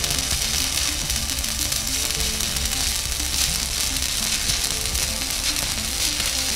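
Stick welding arc crackling steadily as a flux-coated electrode is dragged along a flat butt joint, with background music playing over it.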